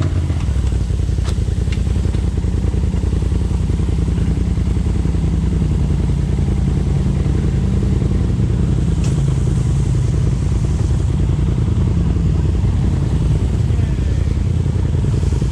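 Polaris RZR side-by-side's engine running steadily at low speed, a continuous low drone while crawling a rocky trail.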